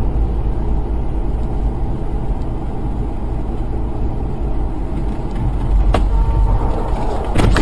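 Steady low rumble of a car driving on a snow-covered road, heard from inside the cabin, with two sharp clicks in the second half.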